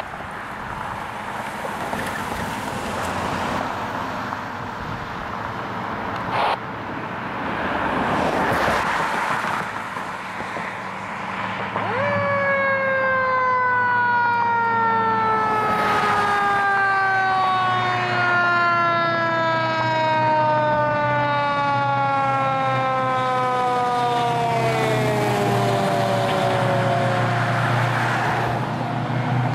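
Fire engine's siren approaching: about twelve seconds in a single wail sets in and then slowly winds down in pitch for some fifteen seconds, over the low drone of the truck's engine. Road traffic noise before it.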